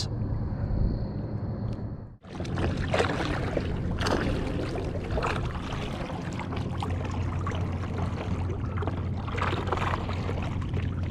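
Water sloshing and trickling around a kayak over a steady low hum, with a few louder splashes. The sound cuts out for a moment about two seconds in.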